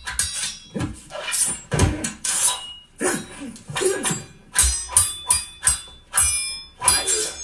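Steel swords clashing in a fast film sword fight: a dozen or more sharp metallic strikes in quick succession, each ringing briefly, with a few deep thuds beneath.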